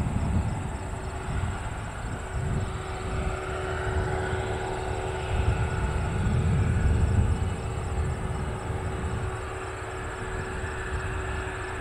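Cessna 172 single-engine piston plane at takeoff power, climbing away: a steady engine-and-propeller drone over an uneven low rumble.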